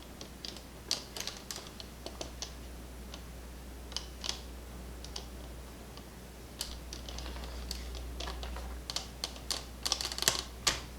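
Irregular light clicks and taps of small parts being handled and set down on a hard work surface, in scattered clusters, busiest near the end.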